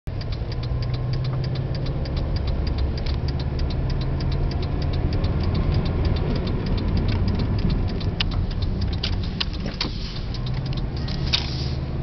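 Subaru EJ22T turbocharged flat-four running at low revs while the car drives off gently, heard from inside the cabin. A quick, even ticking of about six or seven clicks a second runs over the engine drone, with a few sharper clicks from about two-thirds of the way in.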